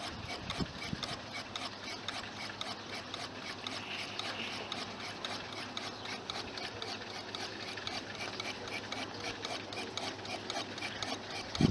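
Homemade Newman-type electric motor running, its spinning rotor giving a rapid, steady mechanical ticking.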